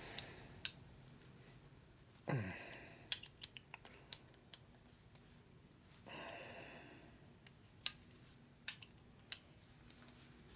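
Sharp metal clicks and clinks of a hex key against a motorcycle brake caliper as it is handled, in two clusters about three and eight seconds in, with a short low grunt just before the first cluster and a soft breath partway through.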